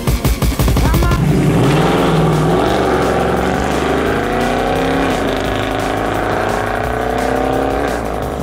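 A Mercedes-AMG saloon's engine accelerating hard, the revs climbing steadily and dropping back at each upshift, about five seconds in and again near the end. A song with a steady beat is heard in the first second.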